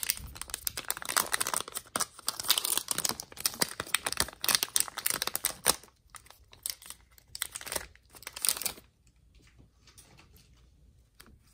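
Topps baseball card pack's plastic wrapper crinkling and tearing as it is ripped open, a dense crackle for about nine seconds. Then it drops to faint handling sounds as the stack of cards is pulled out.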